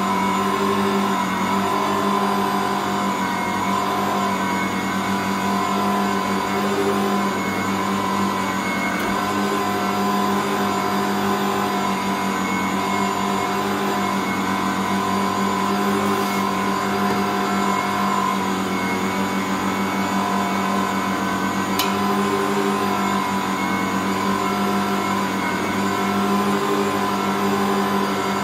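Ankarsrum 6230 stand mixer's motor running steadily as it kneads bread dough, a constant hum with a slow, uneven swell from the dough working in the bowl. One brief click late on.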